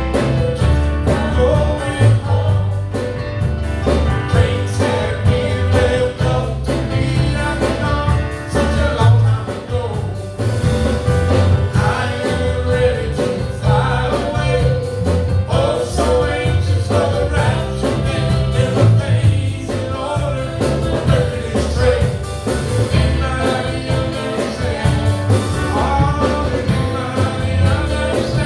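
Gospel song sung over band accompaniment, with a steady bass line under the voices.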